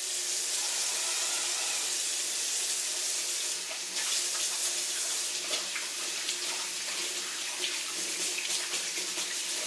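Kitchen sink faucet running while hands are washed under it: a steady hiss of water with small splashes.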